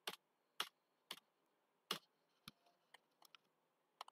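Faint, sharp clicks of computer keyboard keys being pressed one at a time, about eight in all at irregular intervals.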